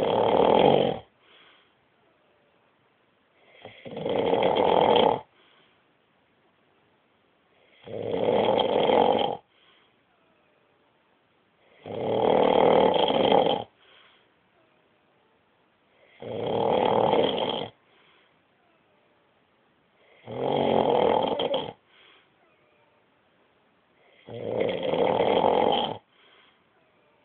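A man snoring: seven snores, one about every four seconds, each about a second and a half long and followed by a short faint breath out.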